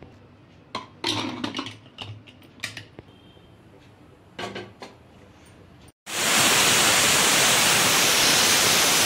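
Several metal clanks and knocks as the lid is fitted onto an aluminium pressure cooker. About six seconds in, a loud, steady hiss begins: steam rushing out of the pressure cooker at full pressure.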